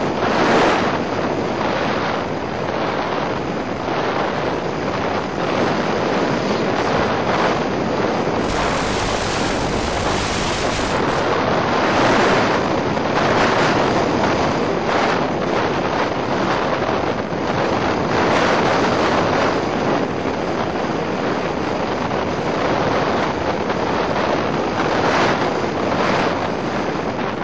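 Loud, steady rushing noise like wind buffeting a model plane's onboard microphone, with no motor tone. From about 8 to 11 seconds in the noise turns brighter and fuller for a few seconds.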